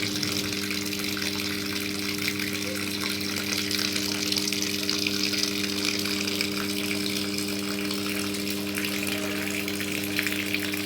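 Water running into the tub of a Samsung top-loading washing machine through its serviced water inlet solenoid valve: a steady rush of water over a steady low electrical hum, the sign that the inlet valve is opening again.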